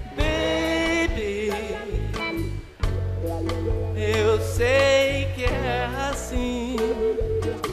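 Live band music: a man singing over an amplified acoustic guitar, bass and drums. The sound drops briefly just before three seconds in.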